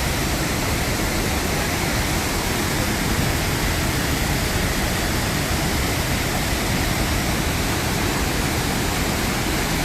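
Waterfall and river water rushing: a steady, unbroken roar of falling water.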